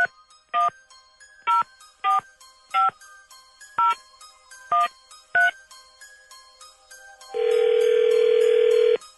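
Telephone keypad touch-tones dialing a number: eight short two-note beeps at uneven spacing. Near the end comes a steady ringing tone of about a second and a half as the call rings through. Soft background music plays underneath.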